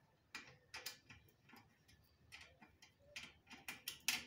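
Faint, irregular light metallic clicks of a 5 mm Allen key turning in and being re-seated on a V-brake arm's pivot bolt, several close together near the end.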